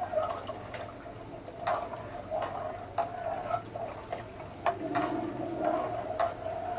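Pakoras deep-frying in hot oil in an iron kadai: a steady crackling bubble with sharp pops every second or so.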